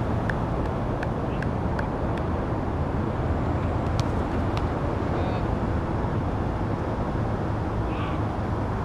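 Footballs being kicked: a scatter of sharp thuds of boot on ball, the clearest about four seconds in, over a steady low rumble, with faint distant shouts near the middle and end.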